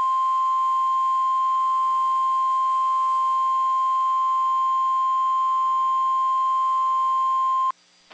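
NOAA Weather Radio's warning alarm tone: a single, steady, loud 1050 Hz tone held for several seconds that cuts off abruptly near the end. It signals that a warning message follows, here a severe thunderstorm warning.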